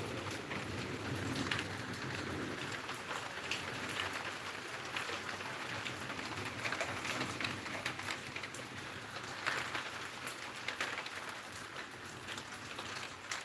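Steady monsoon rain falling, a continuous hiss with many separate drop impacts heard as sharp ticks.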